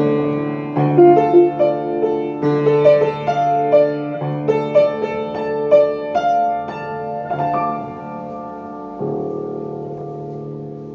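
Solo piano playing a slow melody over sustained chords, then striking a chord near the end that is left to ring and fade.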